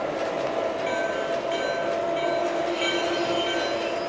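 LGB garden-scale model train running on the layout, its digital sound system playing train sounds: a steady hum with short, repeated higher tones starting about a second in.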